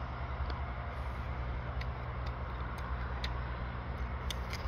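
Steady low engine hum, with a few faint sharp clicks scattered through it.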